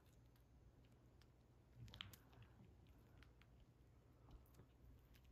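Near silence: faint outdoor background with a low steady hum and a few faint scattered clicks, the clearest about two seconds in.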